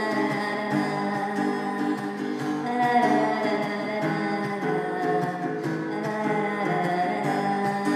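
A song with acoustic guitar and a wordless hummed vocal line, played with an added echo effect.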